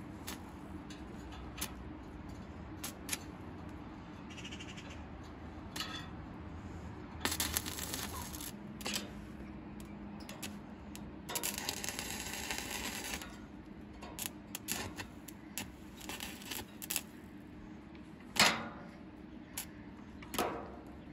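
Stick (arc) welder crackling in two short spells as the electrode burns against steel rebar, with scattered clicks and taps of the rod being struck to start the arc and two louder knocks near the end. These are a beginner's first welds, which he says he could not get right.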